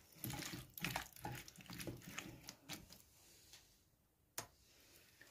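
Hands mixing chunks of potato, carrot and pepper in a sauce in a glass bowl: soft wet squelching with small knocks of the vegetables against the glass, busy for the first three seconds, then quieter with one sharp click about four seconds in.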